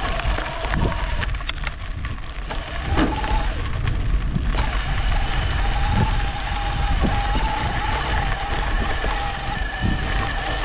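E-bike riding along a trail: a steady motor whine that wavers slightly in pitch, over a low rumble of wind on the microphone, with scattered clicks and rattles from the tyres and frame over the rough surface.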